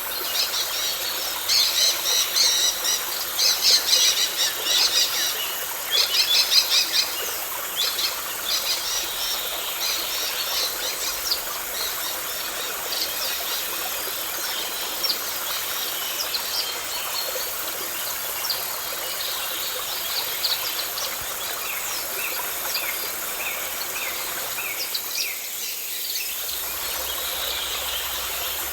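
Small birds chirping and trilling in rapid runs, loudest in the first seven seconds and softer and more scattered after, over a steady high hiss.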